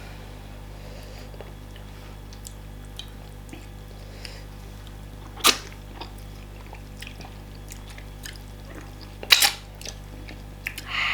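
Mukbang eating sounds: faint mouth clicks and chewing of fufu and meat over a steady low hum, with two sharp, loud clicks or smacks about five and nine seconds in.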